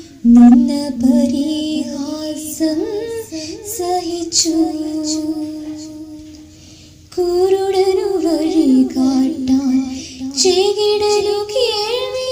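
A woman singing a Malayalam Christian devotional song to musical accompaniment. One sung phrase fades out about six seconds in, and a new phrase begins about a second later.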